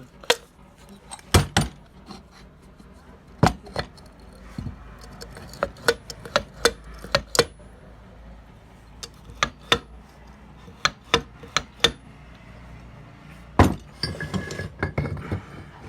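Hand tools tapping and clinking on metal parts: about two dozen sharp, irregular strikes, some with a short ring, then a brief busier rattle of metal near the end.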